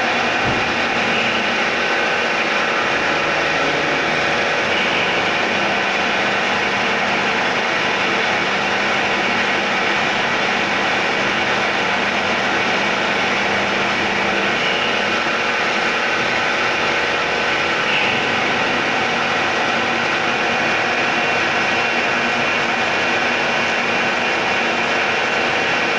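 CNC milling machine running steadily, milling an AISI 1020 mild steel workpiece submerged in coolant: an even machine noise with a steady high tone, and a lower hum that comes in for about ten seconds.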